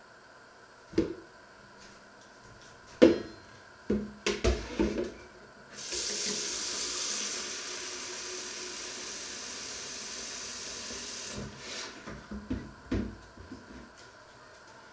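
Kitchen tap running into a plastic jug for about five and a half seconds, a steady splashing hiss. Before it come several sharp knocks and clatters, the loudest about three seconds in, and a few lighter knocks follow after the water stops.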